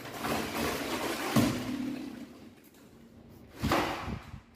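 A hand-lever plastic bottle compressor crushing a plastic water bottle: crackling, crumpling plastic for about two seconds with a sharp knock partway through, then a second knock near the end as the lever is worked.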